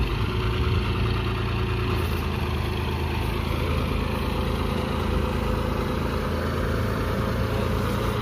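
Tractor diesel engine running steadily at a low, even speed.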